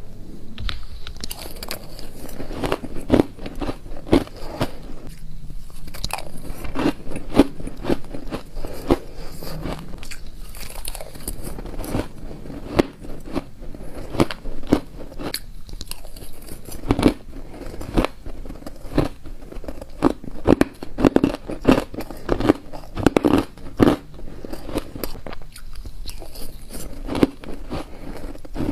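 Shaved ice being bitten and chewed close to the microphone: dense, rapid crunching, many sharp crunches a second, going on almost without a break.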